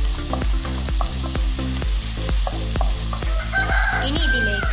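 Chopped onions sizzling as they fry in a non-stick pan while being stirred with a spatula, over background music with a steady beat. Near the end a rooster crows once, a held call lasting about a second.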